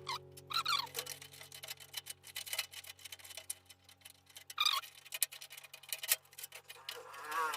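Small irregular metal clicks and ticks as brass motherboard standoffs are screwed by hand into the steel PC cabinet, with a few short squeaky chirps and a steady low hum underneath.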